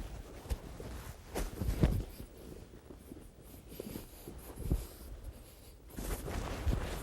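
Two grapplers drilling armbars and escapes on a mat: jiu-jitsu gi cloth rustling and scraping, with irregular thuds of bodies on the mat. The loudest thud comes about two seconds in.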